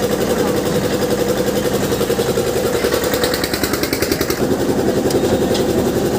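An engine running steadily with a rapid, even pulsing beat, with people's voices in the background.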